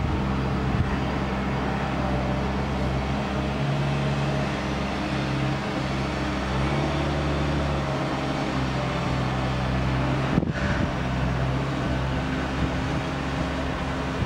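Steady airport ambience: a low engine hum with several steady tones under a broad wash of noise. There are no distinct events.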